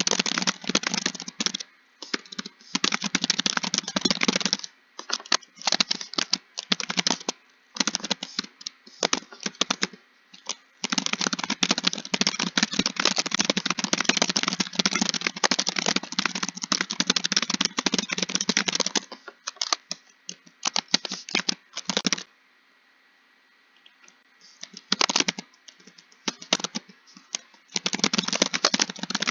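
Computer keyboard typing in fast runs of keystrokes broken by short pauses, with one longer pause of about two seconds around three-quarters of the way through before the typing starts again.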